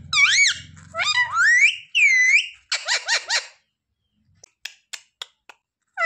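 Pet parrot giving a run of high, squeaky chirps that swoop up and down in pitch, then a short harsh call about three seconds in, followed by a quiet stretch with a few faint clicks.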